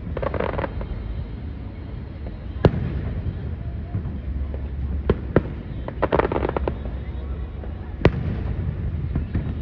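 Aerial fireworks shells bursting at a distance: single sharp bangs every couple of seconds, with a burst of crackling about six seconds in, over a steady low rumble.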